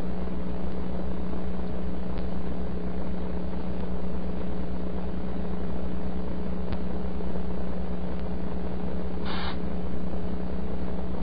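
Steady hiss with a low mains hum from an AM receiver tuned to the two-metre band with no station answering, with one short burst of noise about nine seconds in.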